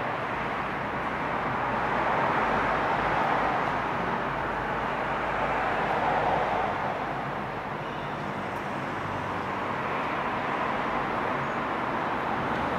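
Steady background rushing noise with a faint low hum underneath, even throughout with no distinct knocks or events.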